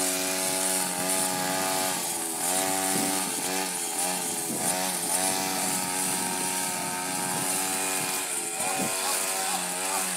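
Petrol brush cutter engine running with a steady hum. Its pitch dips and recovers several times.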